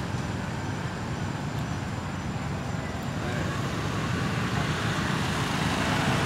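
Steady low rumble of background road traffic, growing a little louder near the end.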